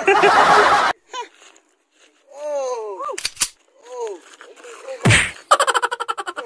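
People laughing and crying out: a loud noisy rush in the first second, then drawn-out cries falling in pitch, and quick bursts of laughter near the end.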